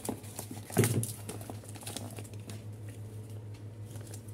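Paper and cardboard being handled: a folded paper leaflet rustles and crinkles as it is pulled from a cardboard box, with a dull knock about a second in, over a steady low hum.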